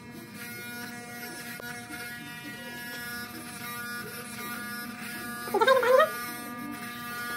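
Electric hair clippers humming steadily as they cut hair. A short burst of a voice comes in about five and a half seconds in.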